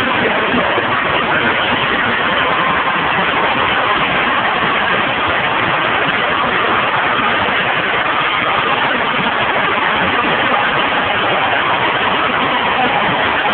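Large stadium crowd cheering, a loud, steady wall of many voices with no breaks.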